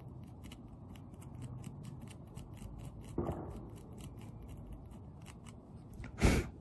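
Rapid small clicks and scrapes, about four or five a second, of a pointed tool picking loose glass out of a windshield chip. There is a louder knock near the end.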